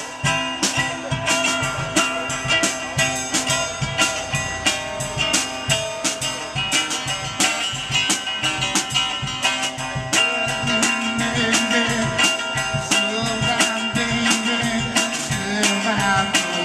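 Live two-piece blues band playing: guitar and drum kit with a steady beat.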